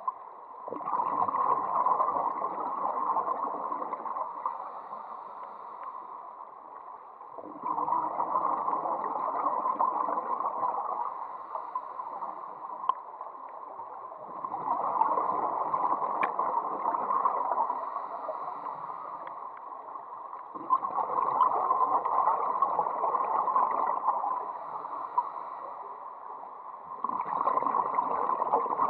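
Underwater gurgling and bubbling that comes in regular swells of three to four seconds, about every six to seven seconds, with quieter stretches in between.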